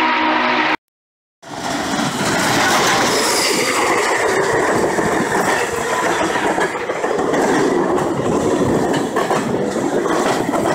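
N&W Class J 611's steam whistle sounding a chord that cuts off abruptly near the start. After a brief dropout, the passenger cars roll past at close range, wheels clattering on the rails.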